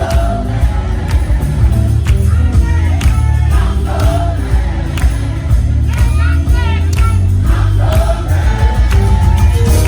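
Live gospel music: several voices singing together over a band, with heavy bass and regular drum hits.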